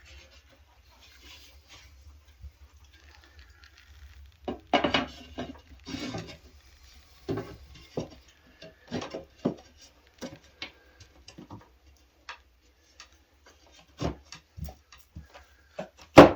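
Irregular clicks, taps and knocks of folding knives being handled and set into a display case, with a sharper knock near the end. A faint low hum runs underneath.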